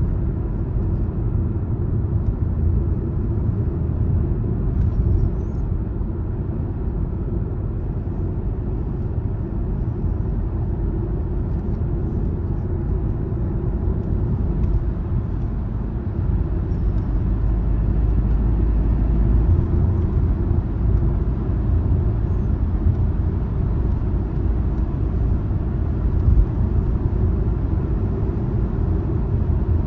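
A car being driven: a steady low rumble of engine and tyre noise, a little louder for a stretch about two-thirds of the way through, with one brief bump near the end.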